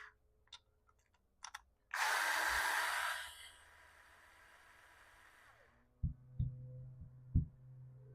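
A burst of hissing, like pressurised gas let out, loud for about a second and a half and then trailing off, during carburettor work. A few light clicks come before it, and a few dull knocks over a low hum follow near the end.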